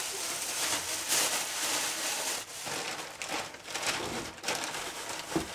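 Plastic bags and food packets rustling and crinkling as they are handled, with irregular small crackles.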